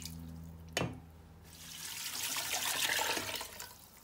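Water poured from a jug into a stainless steel pot of raw chicken pieces, splashing and swelling in the middle before tailing off. There is a short knock about a second in.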